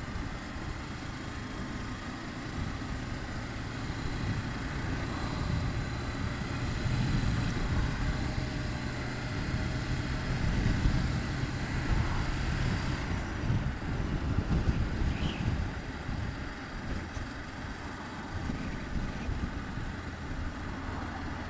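Motorcycle on the move: engine running under a broad rush of wind and road noise, growing louder through the middle and easing off near the end.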